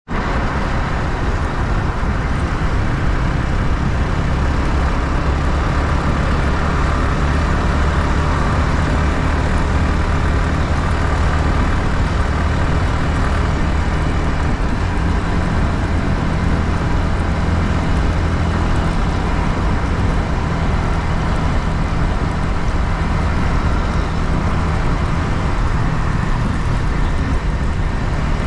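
Yamaha MT-15's 155 cc single-cylinder engine with its stock exhaust, running at fairly steady revs on the move, with wind and road noise on the onboard microphone.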